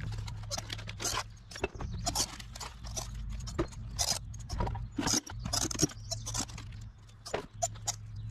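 Irregular clicks, snaps and crackles of a reacher-grabber poking through dry twigs and floating litter to pick out a can.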